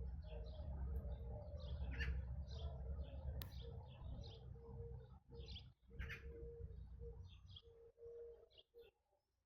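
Small birds chirping: short, high calls repeated about every half second, over a low rumble that fades out about halfway through.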